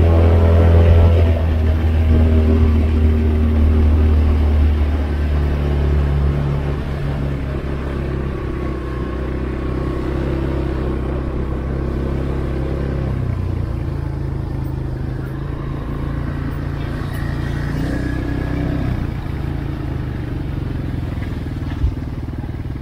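A motor vehicle's engine running steadily while driving, its note shifting in pitch several times. It is louder in the first few seconds.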